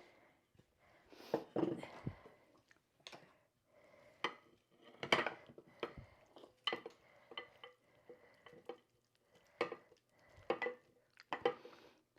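Light clinks and knocks of serving utensils against dishes, a dozen or so irregular strikes, several with a brief ring.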